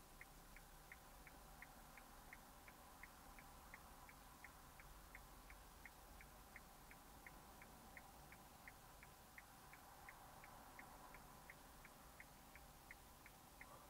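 Faint, steady ticking of a car's indicator flasher relay heard inside the stationary car, about three clicks a second, over a faint low hum.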